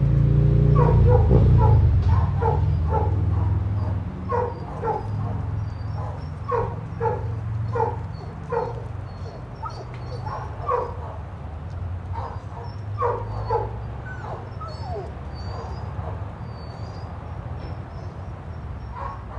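Dog barking repeatedly, about two short barks a second, thinning out near the end, over a low rumble that is loudest in the first few seconds.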